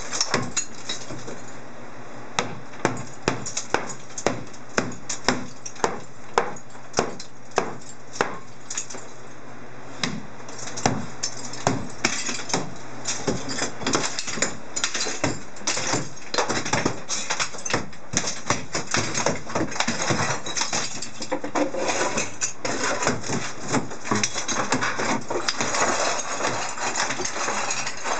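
Hand hammer striking old cement-set tile walls on metal lath, knocking the mortar bed loose. The blows come evenly at about two a second at first, then faster and closer together in the second half.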